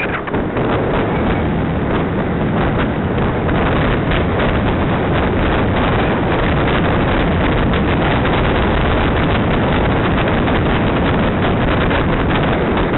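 Wind rushing over the microphone of a camera riding along on a moving bicycle, a loud steady rumble with many small rattles and knocks from the road running through it.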